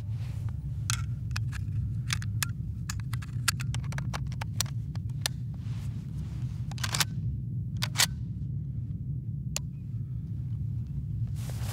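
Footsteps crunching in snow: irregular sharp crunches and clicks over a steady low rumble, with a louder pair of crunches a little after the middle.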